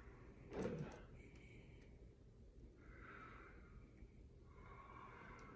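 Faint breathing through the nose: one sharper, louder breath about half a second in, then three soft breaths spaced a second or two apart.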